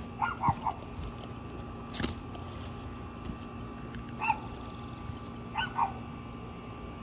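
A dog barking in short groups: three quick barks at the start, one about four seconds in, and two more near the end. A single sharp click sounds about two seconds in.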